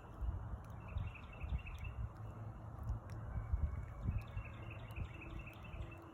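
A small bird gives two quick runs of short high chirps over a low rumble of wind on the microphone. A faint steady buzz of honeybees flying at the hive comes in past the middle.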